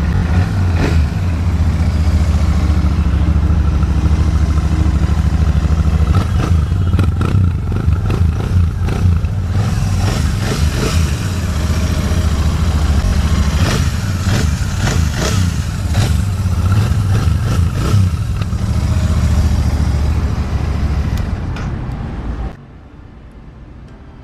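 Royal Enfield Shotgun 650's 648 cc parallel-twin engine running with a deep, steady exhaust rumble and some mechanical clatter, cutting off suddenly near the end.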